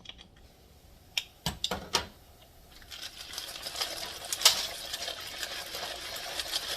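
Dry wheat pasta being shaken out of its box into a pot, the hard pieces rattling and clattering in a dense stream from about three seconds in, after a few scattered clicks.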